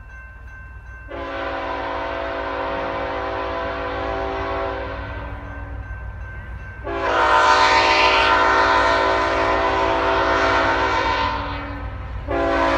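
CSX freight locomotive's air horn sounding its grade-crossing signal: a chord of several notes in two long blasts of about four to five seconds each, with a third blast starting near the end.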